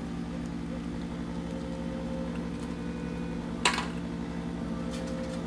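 A steady low hum from a running appliance or fan, with a single short sharp knock about two-thirds of the way through as a piece of cork bark is handled in a plastic enclosure.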